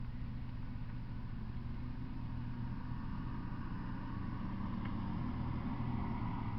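A distant vehicle rumbling, growing slightly louder in the second half, over a steady low hum.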